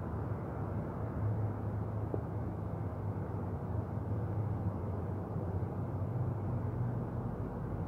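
Steady low hum with an even rushing noise from a ceiling air-conditioning unit running.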